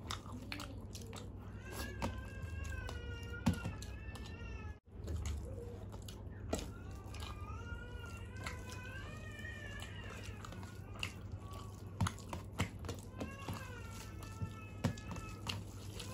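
An animal's high, wavering cries, three long ones of two to three seconds each, about two seconds in, around eight seconds in and near the end. Sharp clicks of fingers mixing rice on steel plates run between them.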